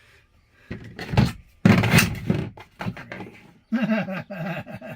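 Knocks and thuds of hardware being worked into place, with a loud clattering stretch about two seconds in, then a voice.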